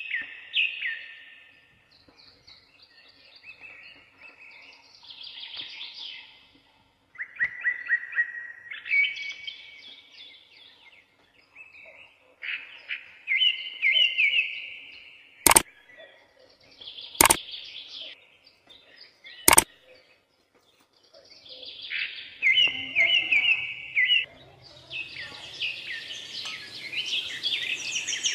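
Birds singing in short chirping and trilling phrases every couple of seconds, with three sharp clicks a little past halfway. The birdsong grows busier near the end.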